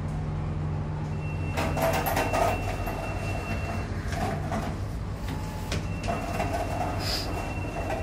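Otis passenger lift in operation: a steady low hum with bouts of rattling clatter from the car and its sliding doors. A thin high whine comes in about a second in, drops out around four seconds, and returns around six seconds.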